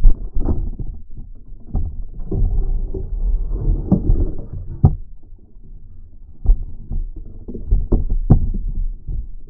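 Muffled underwater sound heard through a GoPro's waterproof housing: a low rumble of river water and handling, broken by several sharp knocks. A pole spear is holding a burbot pinned against the stony riverbed.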